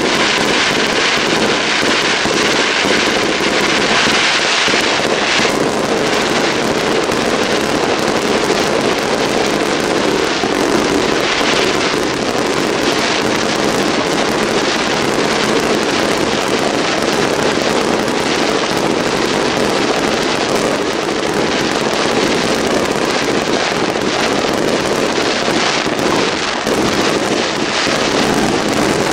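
Aerial fireworks display in a dense barrage, with many bursts going off in quick succession without a break at a steady loudness.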